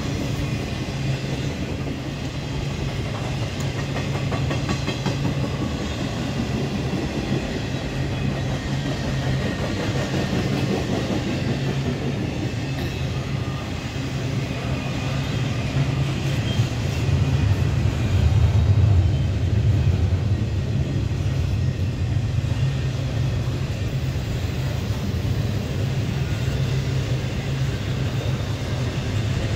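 Intermodal freight train's container and trailer cars rolling past: a steady rumble of steel wheels on the rails, swelling louder for a few seconds past the middle.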